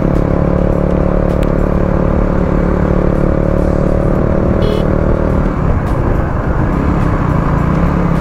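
Motorcycle engine running steadily at cruising speed under wind rush on the microphone. About two-thirds of the way through, the engine note eases off briefly and then picks up again.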